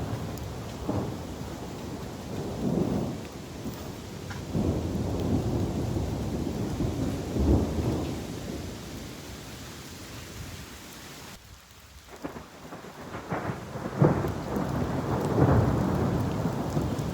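Steady rain falling during a thunderstorm, with thunder rumbling in several rolling swells, the strongest near the end.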